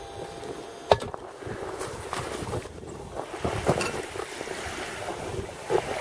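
Outdoor wind noise and small river waves lapping at a snowy shore. There is a single sharp knock about a second in, and a few fainter knocks and crunches later.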